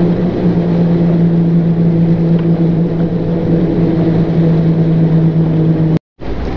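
Jeep on Dominator XL rubber track conversion driving over snow, heard from inside the cab: a steady drone with a constant low hum from the engine and tracks. The sound cuts out for a moment near the end.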